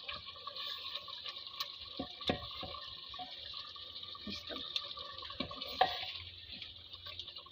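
Turnip and pea curry sizzling in oil in a clay pot, the water cooked off, with a ladle knocking and scraping against the pot as the turnips are pressed and mashed. The sizzle is a steady hiss; the knocks come irregularly, the loudest about six seconds in.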